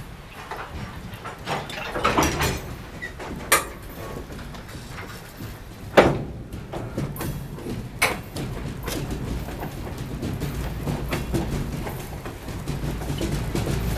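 Ithaca Central Railroad freight train moving on the track: a low rumble that grows toward the end, broken by sharp squeaks and clanks from wheels and couplings, then a run of quick knocks like wheels over rail joints.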